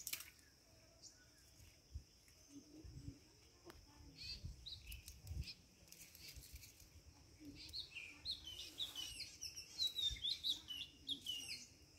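Small birds chirping in quick, short notes that grow busier in the second half, with a few soft low thumps and rustles from a cast net being handled.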